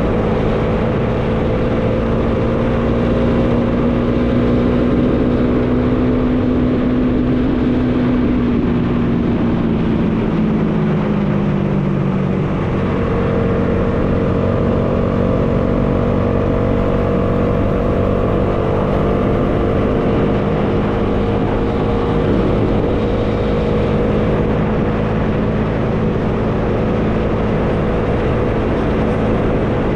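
Bajaj Dominar 400 motorcycle's single-cylinder engine running at a steady cruise, with wind noise. The engine note falls about ten seconds in, then holds steady at a lower pitch.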